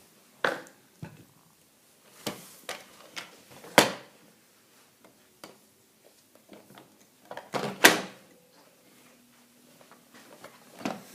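Irregular sharp clicks and knocks, a few soft ones and two louder ones about four and eight seconds in, with quiet stretches between.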